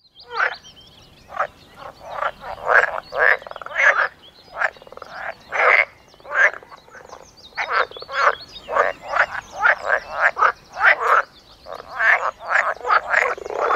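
Frogs croaking in a chorus, short calls following one another about two or three times a second in an uneven rhythm.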